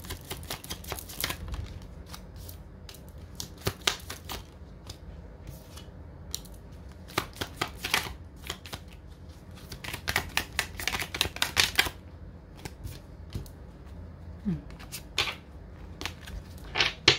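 Tarot cards being shuffled by hand: quick flurries of cards flicking and slapping against each other, coming in several spurts with short pauses between.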